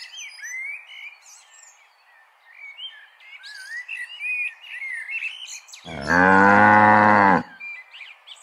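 Small birds chirping, then a cow mooing once, loud and about a second and a half long, starting about six seconds in.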